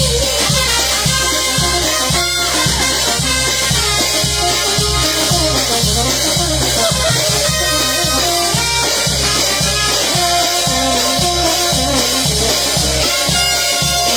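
A Peruvian brass band playing an instrumental passage between sung verses: horn melody over drums and percussion with a steady dance beat.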